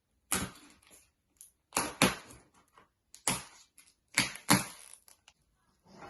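Cardboard box being pulled and torn open by hand: about eight short ripping and crackling bursts with brief pauses between them, loudest about two seconds in and again past the four-second mark.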